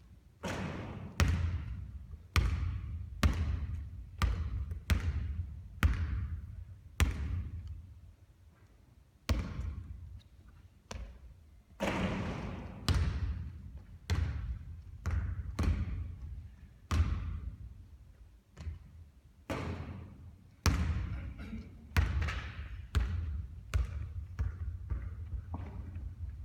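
A basketball bouncing repeatedly on a court floor: a series of sharp thuds at irregular intervals, each trailing off in an echo.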